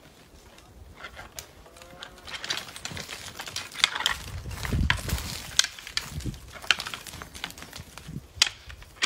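Dry twigs and brush crackling and snapping in quick, irregular clicks as someone pushes through dry scrub, thickening a couple of seconds in, with a dull low rumble about four to five seconds in.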